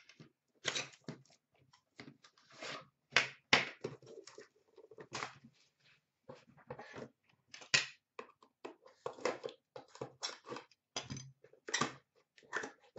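Trading-card packaging being opened and handled by hand: a rapid, irregular run of short crinkles, crackles and clicks.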